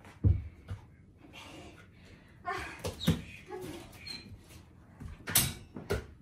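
Knocks and thumps of a large dog scrabbling and playing with a toy on a wooden floor and cushion, then the rattle and clack of a baby gate being shut near the end.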